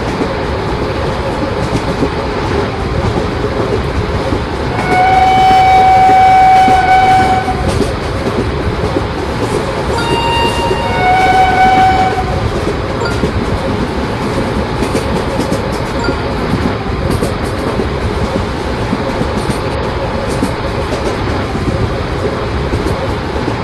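Indian Railways electric train running by with a steady rumble and wheel clatter. The horn sounds twice: a long blast about five seconds in, and a shorter blast that steps from a higher to a lower note around ten to twelve seconds.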